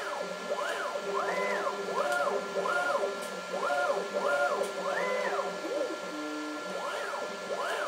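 CNC machine's stepper motors whining as the carbide scribe scratches PCB traces, each move a quick rise and fall in pitch, the longer moves holding a high tone briefly at the top, over a steady hum of tones.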